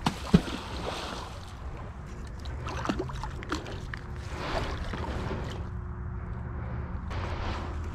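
A heavy neodymium fishing magnet being hauled back through shallow pond water by its rope and dragged up onto a muddy, leaf-covered bank, with sloshing and scraping. A sharp knock comes about a third of a second in, and a low rumble runs underneath.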